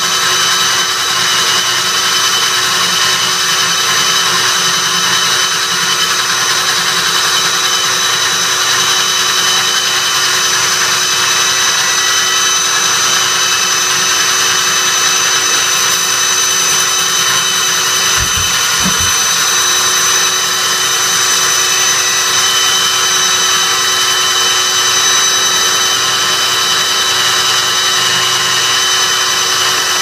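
Hilti DD 350 diamond core drill running steadily under load, its bit cutting a wet core into reinforced concrete, together with the suction of a wet vacuum extracting the drilling water: a steady high whine over a loud hiss. Three brief low knocks about 18 seconds in.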